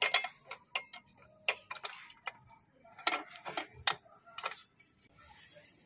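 Irregular metallic clicks and clinks of a hand tool and a steel motorcycle crash bar as the bar is bolted onto its frame mounts. The clicks are scattered at first, then come in short quick runs.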